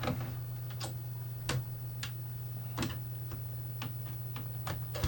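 Scattered small clicks and taps, about nine at irregular intervals, from a screwdriver and plastic parts being handled while a PlayStation 5 is taken apart, over a steady low hum.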